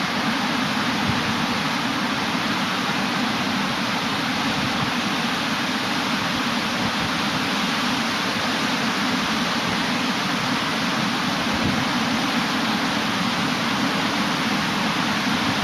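Steady rush of ocean surf mixed with wind buffeting the microphone, with no bird calls standing out.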